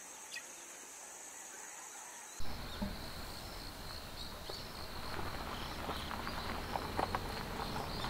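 Quiet ambience: a steady high insect drone like crickets or cicadas, which about two seconds in gives way abruptly to a fuller outdoor bed with a low rumble and faint chirps, slowly growing louder.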